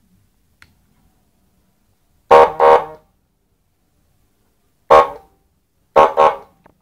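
Electronic siren module playing its horn tone through a 10-watt horn loudspeaker: short honks, first a double honk, then a single, then another double.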